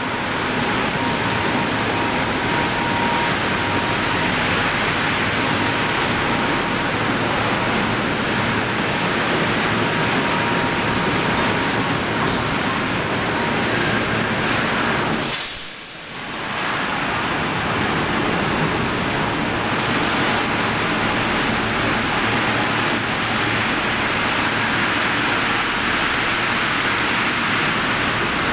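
Steady, loud machinery noise of a hot-rolling section mill line as a red-hot angle-steel bar runs along the roller table. A faint thin whine sounds over it for the first few seconds, and the noise drops out briefly about halfway through.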